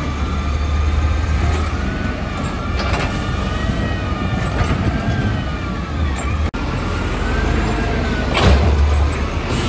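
Front-loader garbage truck with a Mantis FL body running steadily, with a whine that rises and falls over its low engine rumble. There is a short burst of noise about three seconds in and a louder one near the end.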